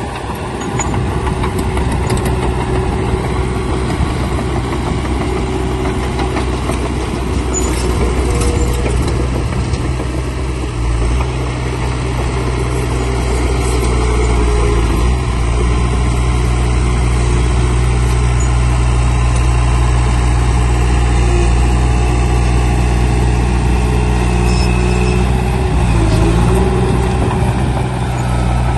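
Heavy diesel engine of earthmoving equipment running steadily, its pitch shifting briefly about eleven seconds in and again near the end.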